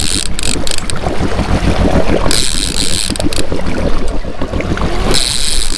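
Fishing boat's engine running with a steady low rumble under wind and water noise, and a high hiss that comes and goes for about a second at a time, twice.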